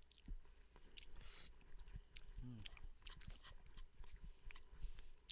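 A man chewing a mouthful of cooked beans, with many small clicks and a brief low hum about halfway through.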